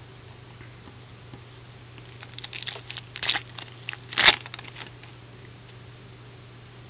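Foil trading-card pack wrapper being torn open and crinkled: a run of sharp crackling rips for a few seconds, loudest near the middle, then it stops.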